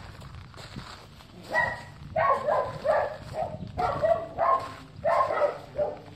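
A dog barking in a run of short, high-pitched barks, about two a second, starting about a second and a half in.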